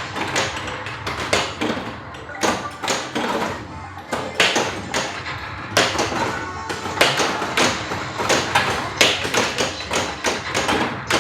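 Bally Safe Cracker pinball machine in play: its game music runs under frequent sharp clacks and thuds from the flippers and the ball striking targets, several a second at irregular intervals.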